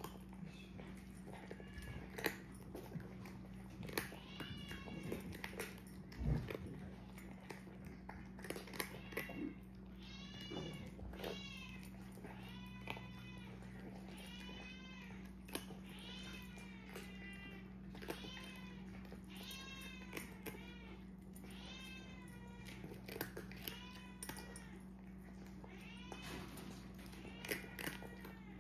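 A cat mewing over and over, short high-pitched mews about one a second, over the scattered clicks and crunches of cats eating dry food from ceramic bowls. A steady low hum runs underneath.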